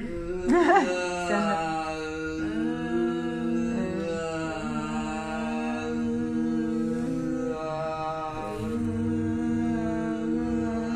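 A woman holds one long, steady vocal tone as a voice exercise, moving her tongue along her lip so the timbre changes while the pitch barely moves. The tone colour sweeps noticeably about a second in, then shifts only slowly.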